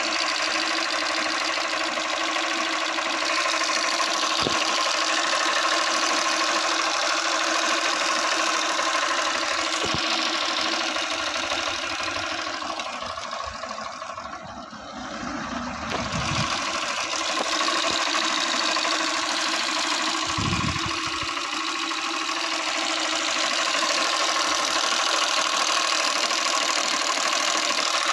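Honda Unicorn 160's single-cylinder engine idling with a fast metallic tappet ticking, which the owner takes for a recurring tappet (valve clearance) problem. The sound dips in loudness briefly about halfway through.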